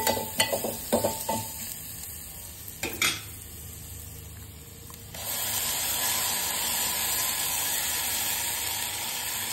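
Steel spoon clinking against a metal pot while stirring onion, garlic, mustard seeds and curry leaves frying in oil, with a knock about three seconds in. About five seconds in, wet ground tomato-coconut masala is poured into the hot oil and a loud steady sizzle starts.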